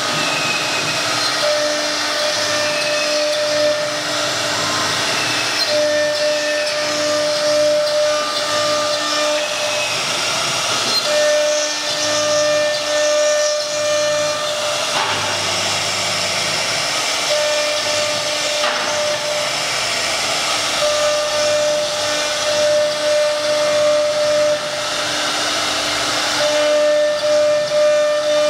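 1325 CNC wood router cutting a pattern into a wooden sheet: its spindle and bit make a steady hiss of cutting, with a whining tone that drops out and returns every few seconds as the head moves.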